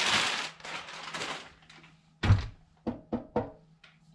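Plastic wrapping bag crinkling as it is crumpled by hand. About two seconds in there is a single dull thunk, then a few sharp clicks as the black metal safe is handled.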